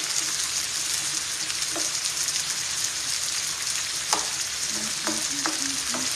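Yam slices sizzling in hot vegetable oil in a frying pan, a steady hiss. A spatula knocks and scrapes against the pan a few times as the pieces are turned to brown on both sides, most sharply about four seconds in.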